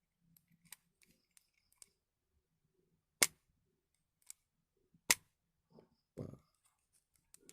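Pioneer Vanadium Power VP1000 spinning reel being handled: light scattered clicks and ticks, with two sharp loud snaps about two seconds apart and a softer knock near the end.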